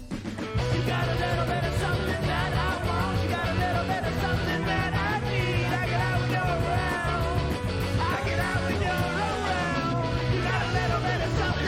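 Rock music with a full band playing loud, coming back in at full level about half a second in after a brief drop.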